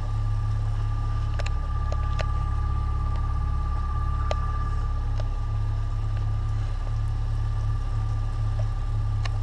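A boat motor running steadily with the boat under way: a constant low rumble with a thin, steady high whine over it and a few light ticks.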